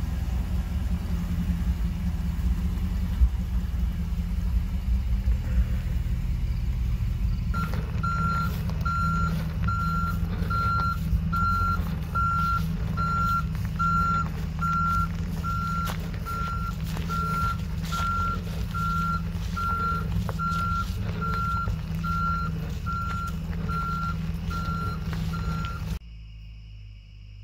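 1969 International Harvester Loadstar 1700 truck's engine running. About a quarter of the way in, its reverse alarm starts beeping evenly, a little over once a second, while the truck backs up. Near the end the sound drops abruptly to a much quieter background.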